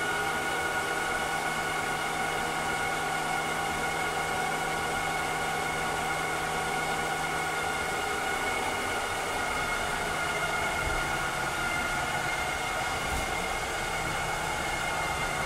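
Vileda robotic vacuum cleaner running steadily, its motor and fan giving a hiss with a steady high whine. A low hum underneath stops about halfway through.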